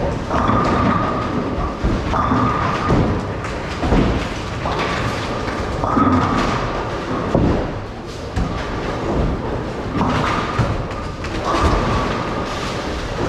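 Bowling alley: balls rolling down the lanes with a steady rumble, and repeated thuds and crashes of balls and pins, several sharp impacts a few seconds apart.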